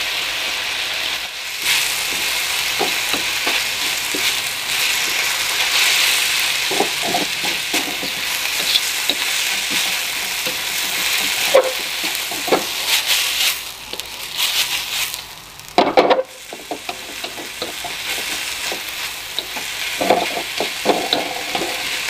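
Papaya leaves stir-frying in a wok: steady sizzling of hot oil, with a wooden spatula scraping and knocking against the pan. The sizzle drops away briefly about fourteen seconds in, and a sharp knock comes about two seconds later.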